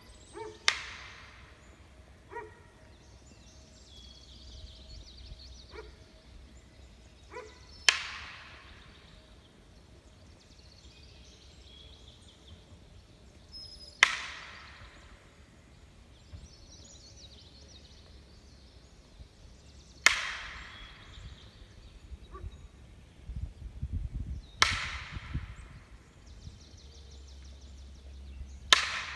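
Six loud, sharp cracks about four to six seconds apart, each followed by an echoing tail, with a few fainter clicks in between.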